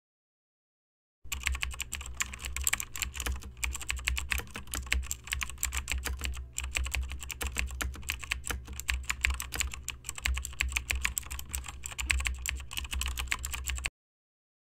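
Computer keyboard typing: a fast, continuous run of key clicks that starts abruptly about a second in and cuts off abruptly near the end.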